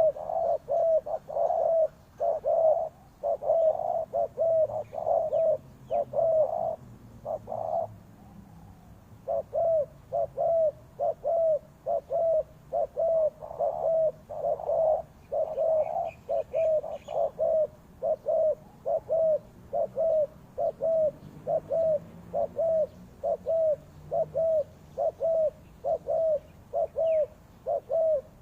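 Spotted dove cooing over and over, short low notes about one or two a second, pausing briefly about eight seconds in before going on steadily. A few faint higher chirps from other small birds come in around the middle.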